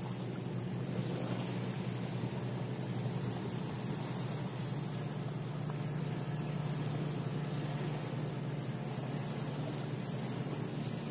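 Steady low hum of a boat engine running out on the water, holding one even pitch throughout.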